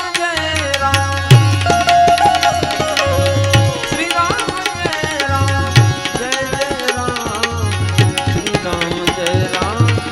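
Instrumental passage of a Gujarati devotional dhun: tabla strokes, the deep bass drum sliding up in pitch on some beats, under a melodic instrument carrying the tune, with no voice singing.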